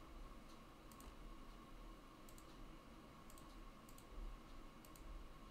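Faint computer mouse clicks, a few of them in quick pairs, over near-silent room tone.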